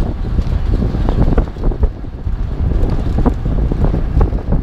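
Wind buffeting the microphone over the low rumble of a vehicle on the move, hauling a loaded trailer down the highway, with irregular knocks and rattles.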